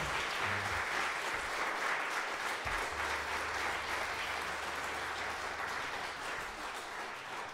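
Audience applauding, many hands clapping at once, easing down slightly near the end.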